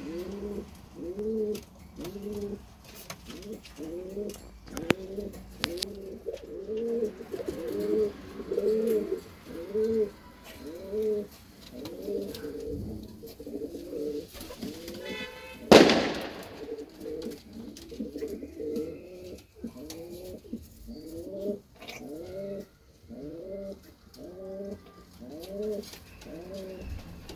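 Racing pigeons cooing: a steady run of short, low calls that rise and fall, about two a second. There is one sharp knock a little past halfway.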